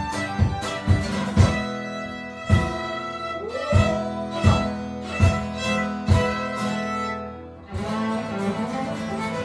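Folk band playing an instrumental passage: fiddle over strummed acoustic guitar, with a steady beat. The beat drops out briefly near the end, and the music then carries on.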